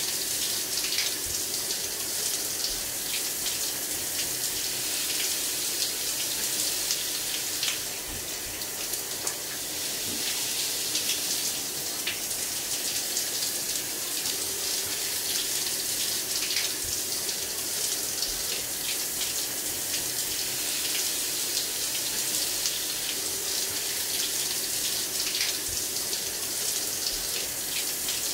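Bollina micro-nanobubble handheld shower head spraying water steadily, the spray hissing and splashing on a man's face and body, a little softer for a moment about eight seconds in.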